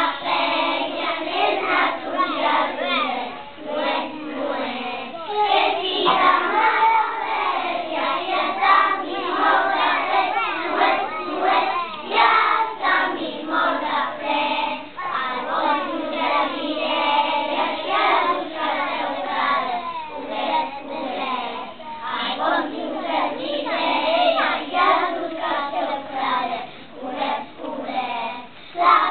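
A group of young children singing a song together, phrase after phrase with short breaths between.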